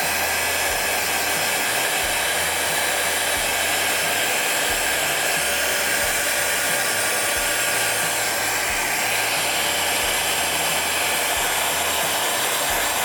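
Heat gun blowing hot air steadily with a whirring fan, shrinking heat-shrink tubing over the wiring connectors.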